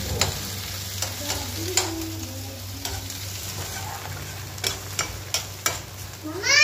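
Diced potatoes sizzling in a kadhai of hot oil as a metal spatula stirs them, with sharp scrapes and taps of the spatula against the pan, most frequent in the second half. A short voice sounds right at the end.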